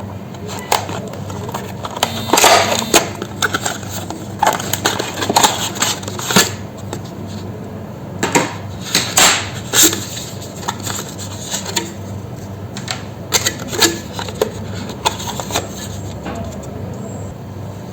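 Irregular clicks, taps and clatter of a laptop's plastic and metal parts being handled during disassembly, over a steady low hum.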